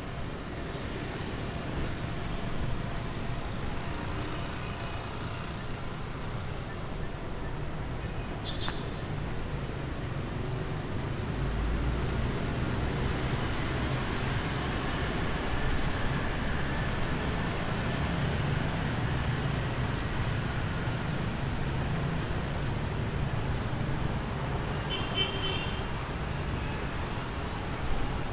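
Street traffic of motorbikes and cars passing, a steady low rumble that grows a little louder about halfway through. A short horn beep sounds near the end.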